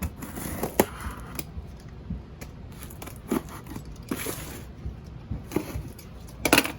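Cardboard box being opened and unpacked: irregular rustling, tearing and scraping of cardboard and packing, with a few sharp clicks and a loud rustle near the end.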